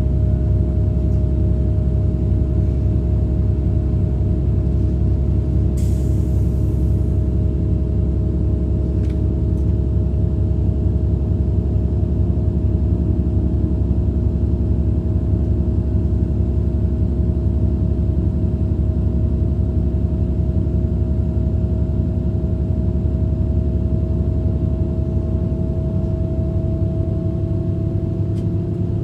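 Regional diesel train running steadily, heard from inside: a deep engine and running-gear rumble with a fast low pulsing and a steady hum, plus a short hiss about six seconds in.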